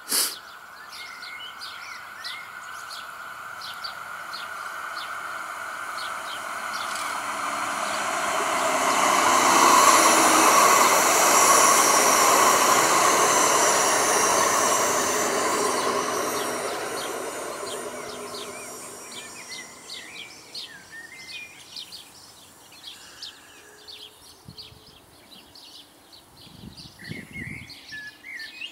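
A light-rail tram-train running on the tracks. Its wheel and rail noise swells to a peak about ten seconds in and fades away over the next several seconds. Small birds chirp throughout.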